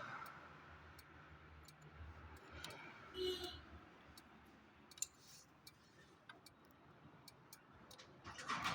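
Faint clicks and a metallic clink of hand tools working on a motorcycle engine's valve gear with the engine off, as the valve clearance is being set; the loudest is a short ringing clink about three seconds in.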